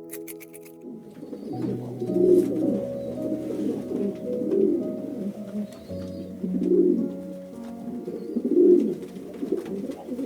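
Background music with a low animal call repeated four times, about two seconds apart.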